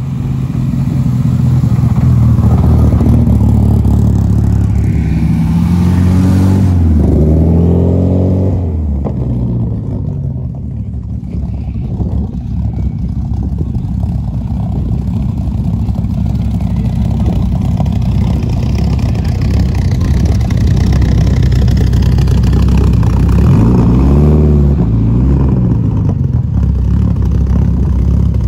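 Loud car engines running as cars drive off across a gravel lot. The revs rise and fall twice: a longer rev about six seconds in and a short one near the end.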